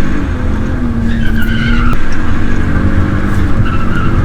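BMW E46 323's M52TU 2.5-litre straight-six running at high revs while the rear tyres spin and squeal in a burnout. The tyre squeal comes and goes, sliding down in pitch.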